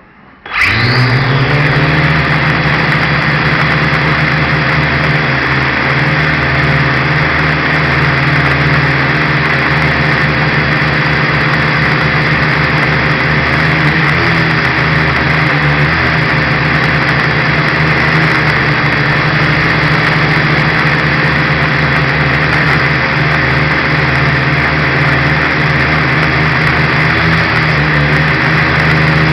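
Dromida Ominus quadcopter's electric motors and propellers, heard close up from its own onboard camera: they spin up suddenly about half a second in, then keep up a loud, steady whirring whine with small shifts in pitch as it flies.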